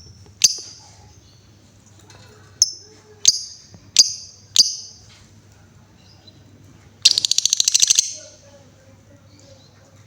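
Female lovebird giving five sharp, high chirps, then a fast rattling trill lasting about a second, about seven seconds in: the 'ngetik' chirping carried on into the 'ngekek' trill.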